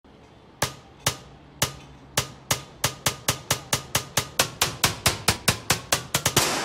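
A build-up of sharp snare-like drum hits, about two dozen, starting about half a second apart and speeding up steadily, ending in a rising hiss near the end.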